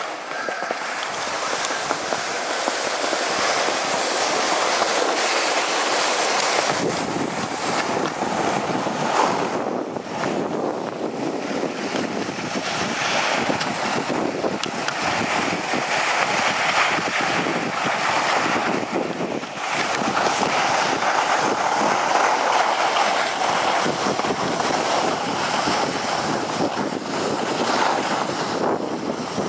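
Skis sliding and scraping over packed snow on a downhill run, with wind buffeting the microphone. The wind rumble gets heavier about six and a half seconds in, as the run picks up speed.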